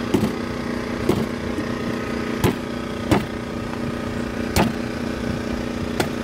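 A large knife chopping the husk of a fresh green coconut: several sharp chops a second or so apart, over a steady engine hum.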